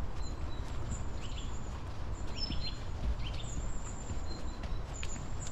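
A walker's footsteps on an earth towpath, with small birds chirping a few times.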